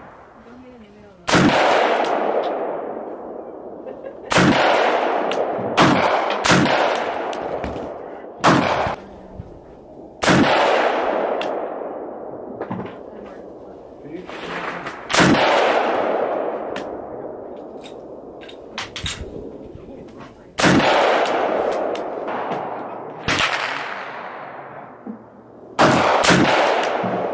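A series of about ten rifle shots from an AR-15 in .223, fired singly at irregular gaps of one to several seconds, a few of them in quick pairs. Each crack trails off in a long echo.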